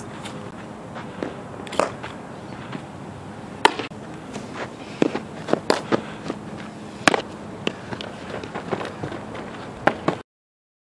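Softball fielding practice: a string of sharp, irregular pops of a softball striking leather gloves, with scuffing steps on the infield dirt. The sound cuts off suddenly near the end.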